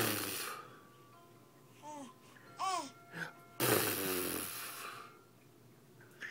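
Baby girl squealing and cooing in short rising-and-falling calls, then a loud breathy squealing laugh about three and a half seconds in that lasts around a second. A faint electronic tune of steady tones plays underneath.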